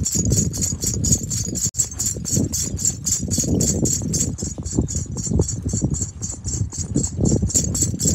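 Kathiyawadi mare's hooves on a dirt farm track as she is ridden at a steady pace. There is a quick, even patter of high clicks, about six a second, over a low rumble.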